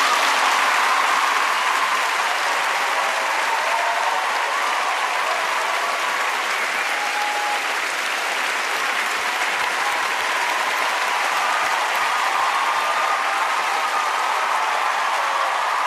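Large studio audience applauding steadily, with cheering voices faintly audible above the clapping, just after the song ends.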